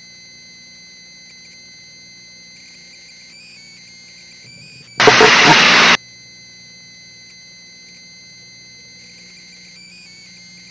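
Quiet steady hum of an aircraft radio and intercom feed with faint steady tones. About five seconds in, a loud burst of radio static lasts about a second and cuts off sharply.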